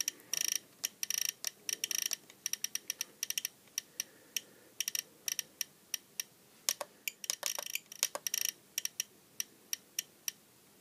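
Spektrum DX8 transmitter's roller selector clicking as it is scrolled and pressed to enter letters of a model name: short, sharp ticks in quick runs of several a second, with brief pauses between letters.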